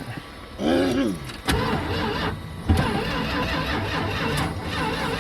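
1980 Dodge Ram van's engine being cranked by its starter in deep cold, turning over steadily without catching. It cranks in two goes with a short break about two seconds in: a frozen engine that will not fire.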